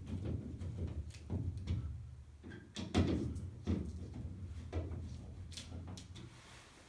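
A series of sharp plastic clicks and knocks, the loudest about three seconds in: a residential fire alarm being handled and fitted or removed from its mounting base.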